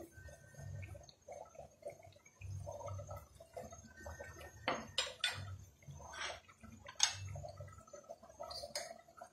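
Chicken and vegetable curry in a thin gravy simmering in a pan: faint, irregular bubbling with a few sharp small pops and clicks in the second half.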